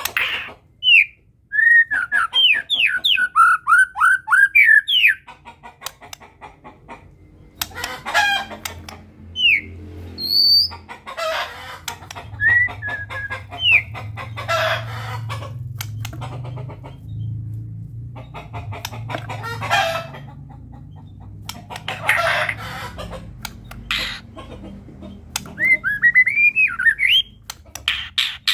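White-rumped shama (murai batu) singing: bursts of rapid, clear whistled notes sliding up and down, broken by several harsh, noisy calls.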